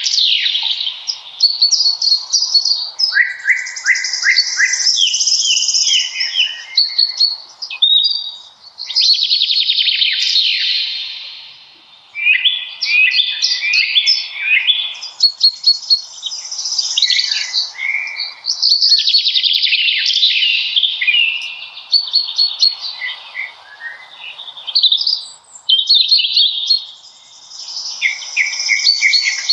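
Songbirds singing in a spring forest: a dense, overlapping stream of chirps, trills and rapid repeated notes, with a few brief lulls.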